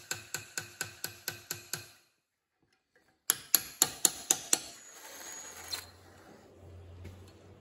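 A hammer tapping a chisel against a broken steel machine screw in a cast-iron vise jaw, light ringing blows at about four a second, trying to back the screw out. After a short gap come a few harder blows, then a cordless drill runs slowly with a left-hand drill bit to drill out the screw.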